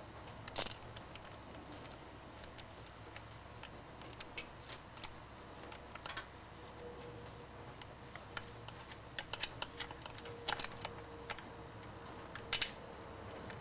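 Scattered light metallic clicks and taps of bolts and hand tools being handled while a blow-off valve is fitted onto a turbo, with the sharpest click about half a second in.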